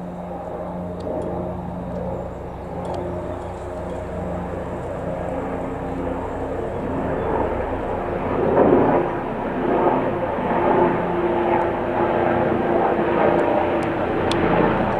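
AgustaWestland AW169 twin-turboshaft helicopter flying low overhead: steady turbine whine and rotor noise that grows louder from about halfway through as it comes closer.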